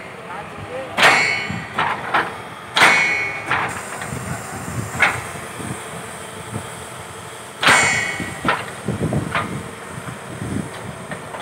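Sharp metallic clangs of steel striking steel at a borewell drilling rig's drill head: three loud ringing strikes, about a second, three seconds and eight seconds in, with lighter knocks between.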